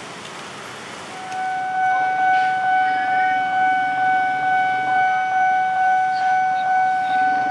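Railway level crossing warning alarm switching on about a second in: a loud, steady electronic tone that pulses about once every three quarters of a second, over the hiss of road traffic.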